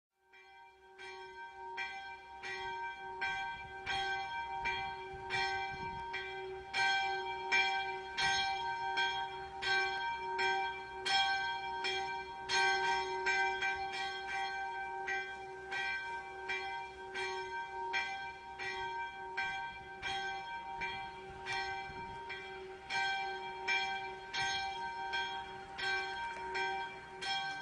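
Church bells ringing, struck over and over about two or three times a second, each tone ringing on into the next strike. The ringing fades in at the start.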